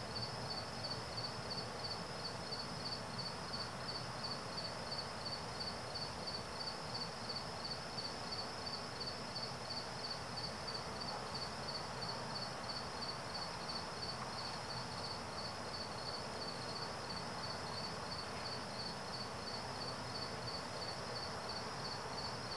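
Crickets chirping: a steady, evenly repeating train of high-pitched chirps.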